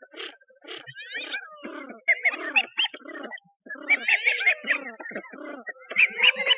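Cats meowing in repeated clusters of calls, several overlapping, with pitch sliding up and down within each call.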